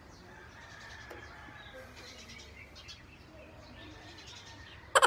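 Quiet outdoor background with faint bird chirps. Right at the very end a sudden loud, rapid rattling starts, at about ten pulses a second.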